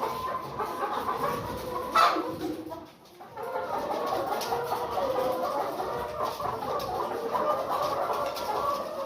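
A flock of laying hens clucking continuously, many overlapping calls. A brief louder sound comes about two seconds in, then a short lull before the clucking resumes.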